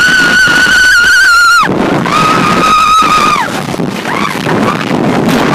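A rider on the Wolverine Wildcat wooden roller coaster screaming in long held screams. One breaks off about a second and a half in, and a second, lower scream follows for about a second and a half. Underneath runs the steady rumble and wind noise of the coaster train running down the track.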